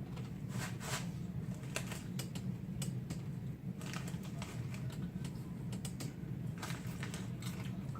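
Crisp, irregular crunching of dry, uncooked ramen noodles being chewed, in short clusters of sharp cracks, over a steady low hum.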